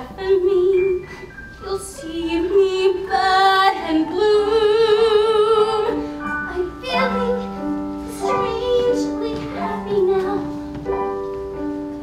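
A young female singer singing a slow ballad with vibrato, over keyboard accompaniment playing long held notes.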